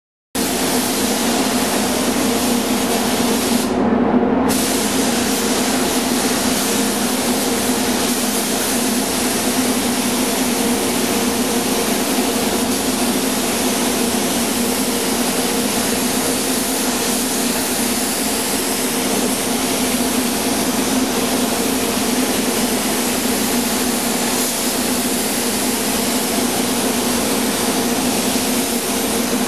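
Iwata W400 gravity-feed spray gun hissing as it lays on clearcoat, over a steady low hum of air moving through the paint booth. The sound starts abruptly, and the spray hiss stops for a moment about four seconds in, then carries on evenly.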